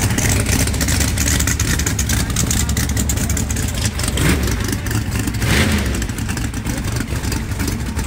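Drag race car's engine running loud near the starting line, with a rough, rapid exhaust beat.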